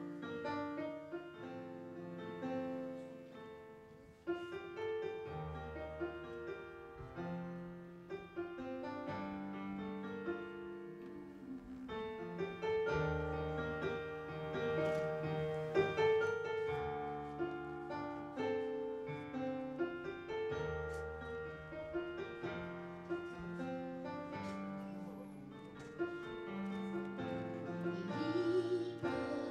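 Keyboard instrumental music: held chords over a moving bass line, an accompaniment introduction. A woman's singing voice comes in near the end.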